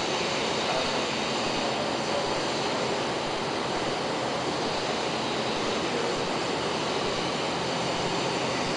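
Steady, even rushing background noise with no distinct events, the kind a running fan or air-conditioning unit makes in a workshop.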